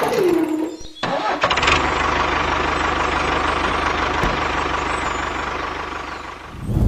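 A whine drops in pitch and stops. After a short break, an engine starts up and runs steadily, then fades away near the end.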